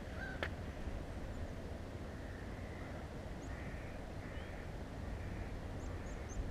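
Birds calling outdoors: a string of short, harsh, crow-like calls about once a second through the middle and end, with a few faint high chirps near the end, over a steady low rumble. A single sharp click about half a second in.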